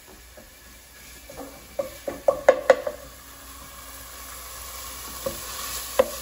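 Wooden spatula stirring sliced lemongrass and tom yum paste frying in oil in a ceramic-lined pot, with a light sizzle that grows louder. A quick run of sharp knocks of the spatula against the pot comes about two seconds in, and another single knock near the end.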